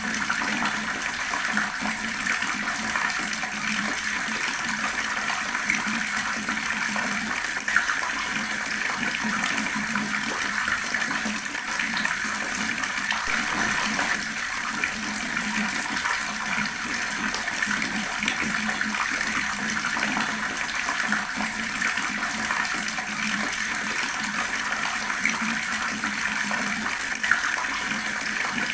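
Water tap running in a steady, gurgling stream of splashing water.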